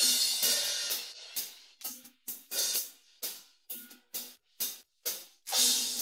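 Isolated cymbal track from a rock drum recording: a crash cymbal rings and decays over about a second, then short cymbal strokes come roughly every half second, and another crash rings out near the end.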